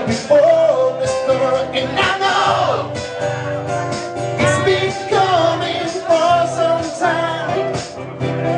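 Live band playing: a man singing over strummed acoustic guitars and a drum kit.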